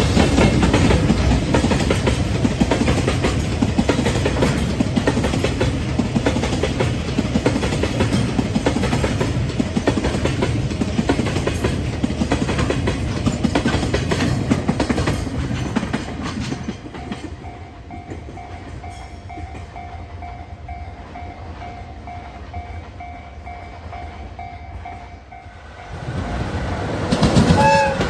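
Freight train running over rail joints: a loud, rapid clickety-clack over a heavy rumble that ends about 16 seconds in. A level-crossing warning bell then rings in a steady repeating pattern over a quieter hum, until another loud train surge near the end with a short falling tone.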